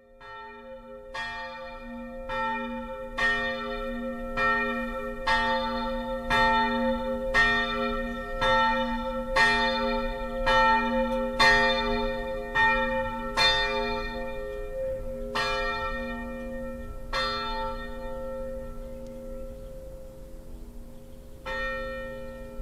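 A single church bell tolling, struck about once a second, each stroke ringing over a lasting hum. The strokes stop about three quarters of the way through, and one last stroke comes near the end. It is ringing in the Sunday service.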